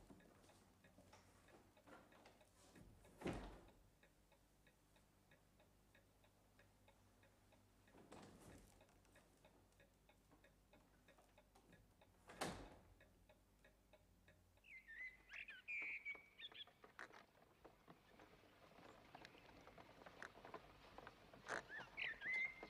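Faint, steady ticking of a pillar mantel clock, with three louder knocks in the first half. From about two-thirds of the way in, birds chirping.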